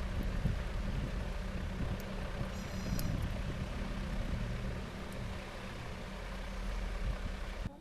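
Electric motor running with a steady low hum, cutting off abruptly near the end.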